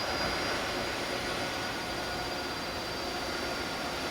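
Jet airliner's engines running: a steady rushing noise with faint, thin whining tones over it.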